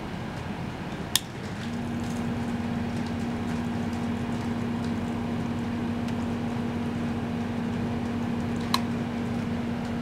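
Small circulation pump pushing water through tubes into a tank, a steady gurgling flow. A steady low hum comes in about a second and a half in, just after a sharp click, and another sharp click comes near the end.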